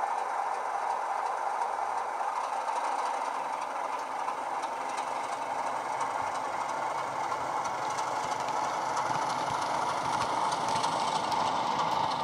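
Heljan Class 33 model locomotive's DCC sound decoder playing the Sulzer diesel engine sound through its small on-board speaker, running steadily as the loco pulls slowly, with light clicking from the wagon wheels on the track that grows in the second half.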